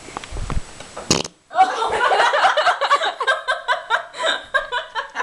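A person's body noise: a brief low rumble, a sharp knock about a second in, then a long, sputtering gas noise in rapid pulses, like a drawn-out belch or fart.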